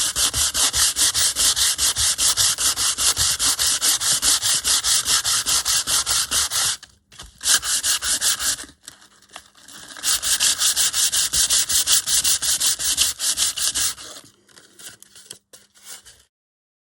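Sandpaper rubbed by hand over a paper journal page in quick, regular back-and-forth strokes, several a second. The strokes break off for about three seconds midway, then resume and stop a couple of seconds before the end.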